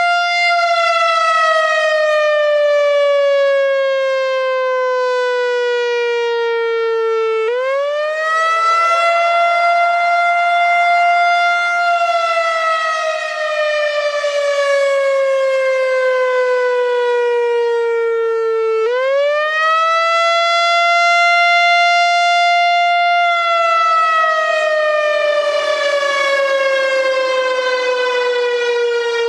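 Whelen WPS-4004 electronic warning siren sounding its Wail signal: a loud tone that rises quickly, holds for a few seconds, then slides slowly down, the cycle repeating about every eleven seconds. Two quick rises fall inside, about a third of the way in and about two-thirds of the way in.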